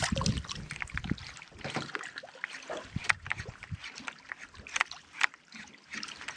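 Water sloshing and slapping against the side of a small fishing boat, with irregular small knocks and clicks.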